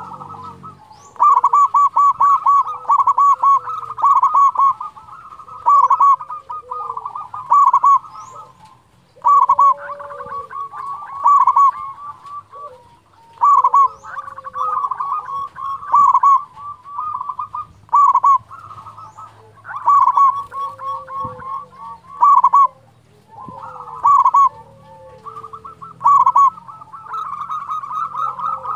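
Zebra dove (perkutut) song: loud bursts of rapid staccato cooing notes, each about a second long, repeated every one to two seconds with short gaps between.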